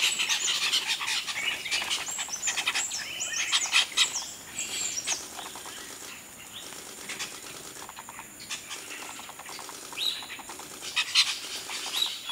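A flock of chestnut-tailed starlings (grey-headed mynas) calling: dense high chattering chirps for the first few seconds, thinning to scattered calls, with a few louder chirps near the end.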